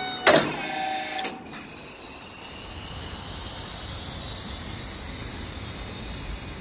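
Maxon tuckaway hydraulic lift gate in operation: a sharp metal clunk just after the start and a second one about a second in, then a steady hiss with a faint high whine as the steel platform lowers.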